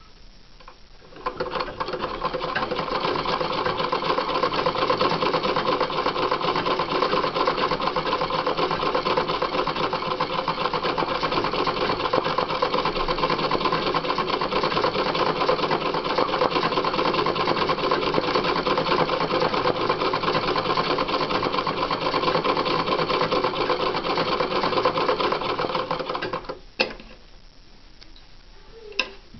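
Sewing machine stitching steadily at speed for free-motion embroidery, starting about a second in and stopping a few seconds before the end. Then two short sharp clicks as the thread is snipped with scissors.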